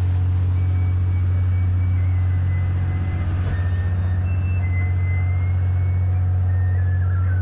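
Sightseeing boat's engine running with a steady low drone, heard on board.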